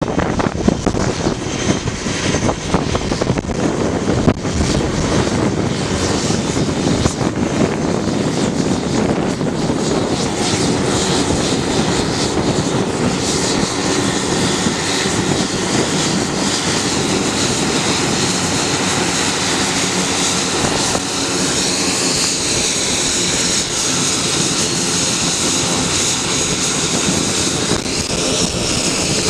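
Pilatus PC-12's single turboprop engine running at taxi power as the aircraft taxis in toward the listener. A steady high turbine whine comes to the fore from about halfway through, over the drone of the propeller.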